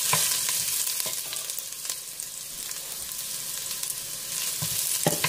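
Sliced ginger and garlic sizzling in hot olive oil in a stainless steel pot while a wooden spoon stirs them, with a few sharp knocks and scrapes of the spoon against the pot.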